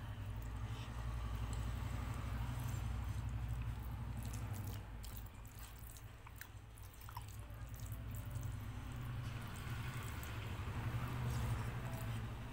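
Close-up wet chewing of a mouthful of dal and rice, with squelching as fingers mash and mix dal into rice on the plate, and scattered small wet mouth clicks over a low rumble.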